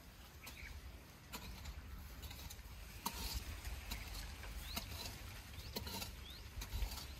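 A small hand tool digging and scraping in garden soil while planting, heard as light scattered clicks and scrapes, with short rising bird chirps now and then.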